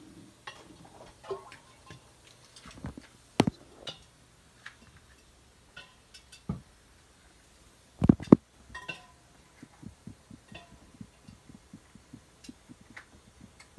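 Cookware being handled, a metal pot and its lid clinking and knocking in scattered short knocks. The loudest is a cluster of knocks about eight seconds in, followed by a run of quick light ticks, about five a second.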